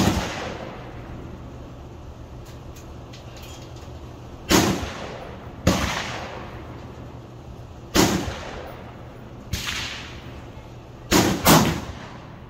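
Gunshots on an outdoor shooting range: seven reports at uneven intervals, each with an echoing tail. The first is the loudest, and two near the end come a fraction of a second apart, too close for one single-shot gun, so several guns are firing.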